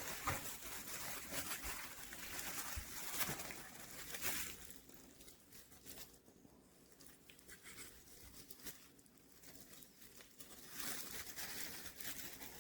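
Faint rustling and handling noises of hands working seasoning rub over a raw pork rib roast, quieter for a few seconds in the middle.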